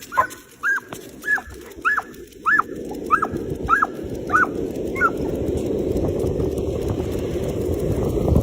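Dog giving a string of about nine high, excited yips, nearly two a second, which stop about five seconds in, as a rushing noise builds and grows louder.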